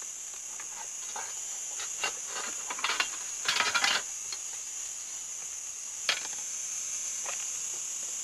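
Steady high-pitched insect chirring, with a cluster of short scraping clicks about two to four seconds in and a single sharp click about six seconds in.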